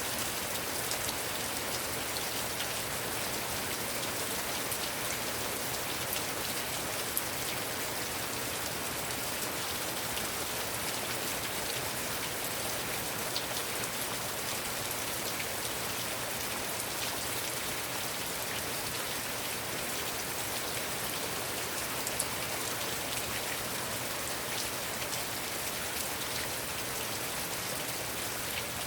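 Heavy rain falling steadily: a dense, even hiss of drops, with an occasional sharper single drop tick standing out.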